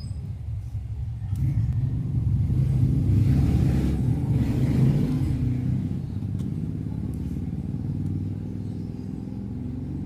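Low, steady engine rumble from a motor vehicle running nearby, growing louder for a few seconds in the middle and then easing off.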